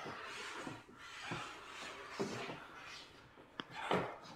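Scuffing and rustling of a large cardboard box being handled, with scattered soft knocks and a sharp click about three and a half seconds in.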